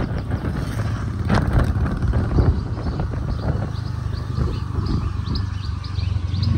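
Motor scooter engine running steadily as it is ridden, with birds chirping in short high notes over the second half.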